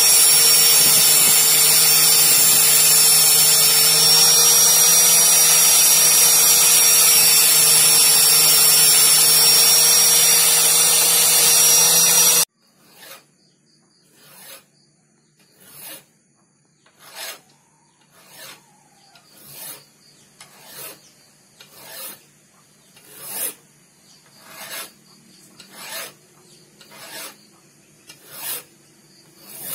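Angle grinder with an abrasive disc grinding a thin steel knife blank, a loud steady whine that cuts off about twelve seconds in. Then a hand file rasping along the steel blade held in a vise, about fourteen slow push strokes, roughly one every 1.3 seconds, each swelling and fading.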